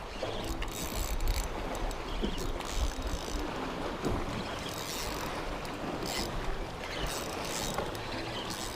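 Wind buffeting the microphone over a steady wash of sea water, with a few faint scattered ticks.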